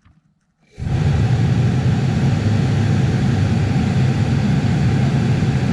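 Newly fitted heater blower motor of a 2011 Ford Galaxy switching on about a second in and running steadily, a loud, even rush of air from the fan.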